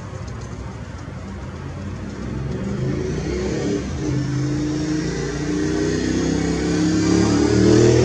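A motor vehicle's engine accelerating as it passes, its note rising in pitch and growing louder toward the end, over a background of city traffic.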